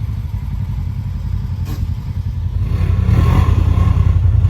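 Side-by-side UTV engine running with a steady throb, then revving up a little under three seconds in, with a brief gritty clatter as it pulls.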